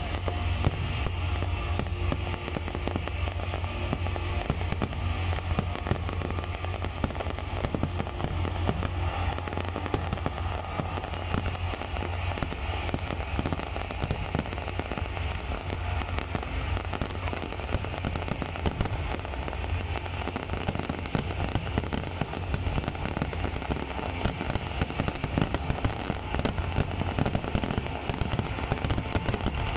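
Fireworks finale: a dense, unbroken barrage of aerial shells bursting and crackling, bangs overlapping one another over a continuous low rumble.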